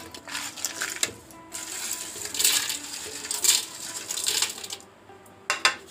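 Strawberries dropping and clattering into a plastic blender jug, then something dry tipped in from a plate in a few hissing pours, with a single sharp knock near the end.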